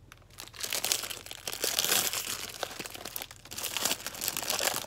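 Clear plastic packaging sleeve crinkling and rustling as it is handled and pulled off an iPad case, starting about half a second in with a brief lull about three and a half seconds in.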